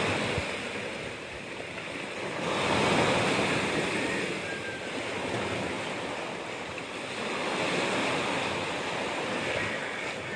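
Small sea waves breaking and washing up a sandy beach, the surf swelling and fading about three times as each wave comes in.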